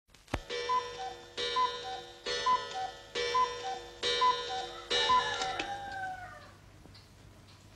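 Clock striking six strokes, about one a second, each a ringing two-tone chime; the last stroke rings on and fades away.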